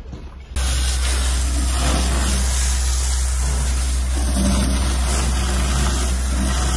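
Fire hose jet spraying water onto smouldering wreckage: a loud steady hiss that starts abruptly about half a second in, over a low steady hum.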